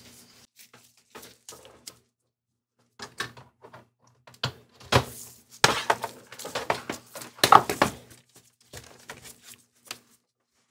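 Scattered clicks and knocks of a cable and its plugs being handled against a console and workbench.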